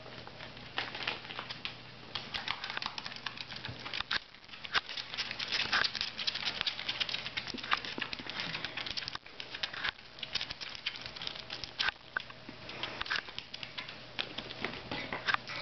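Guinea pigs' feet pattering and scrabbling on cardboard as they run through a box tunnel: a dense, irregular run of light ticks and scratches.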